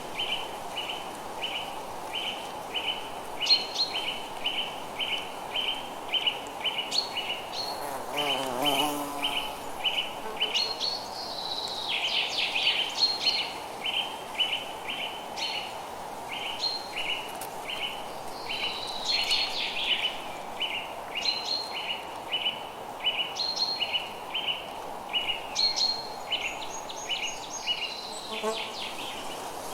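Birdsong: a short chirp repeating about two to three times a second under other birds' sweeping calls, over a soft, even hiss.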